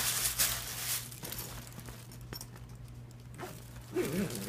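Metallic pom-poms rustling and crinkling as they are pushed down into a fabric duffel bag, then more rustling near the end as the bag's zipper is pulled shut.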